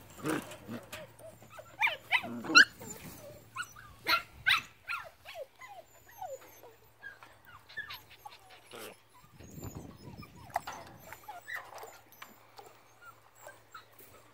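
Puppy whimpering and yipping in many short, high-pitched whines, loudest and most frequent in the first few seconds and then fewer, with a spell of water sloshing about ten seconds in as a puppy wades in a shallow plastic pool.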